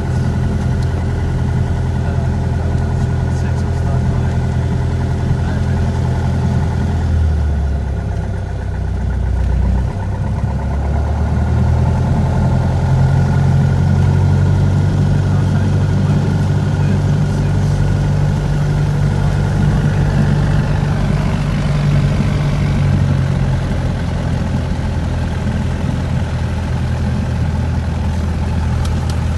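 Single piston engine of a four-seat light aircraft running on the ground, heard from inside the cockpit. The revs dip briefly, rise about eleven seconds in and hold higher for ten seconds or so, then ease back down.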